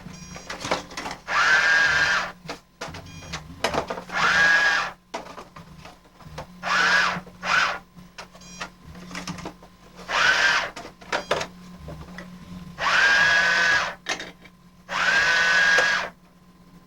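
Small battery motor of a toy store-and-register play-set whirring in short bursts, about six times, each about a second long, its pitch rising as it spins up and falling as it stops.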